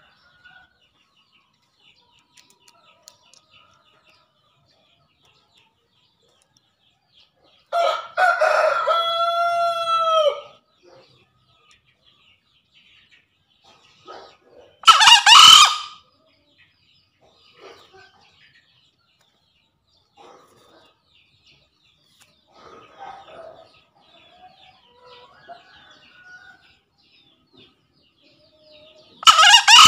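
Male green junglefowl crowing to call out rivals: a drawn-out crow about eight seconds in, a short, harsher crow about seven seconds later, and another crow at the very end, with faint soft calls in between.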